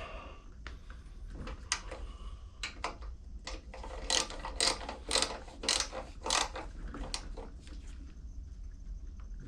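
Ratchet wrench clicking in short strokes, about two clicks a second, as cylinder head bolts on a small lawn mower engine are tightened.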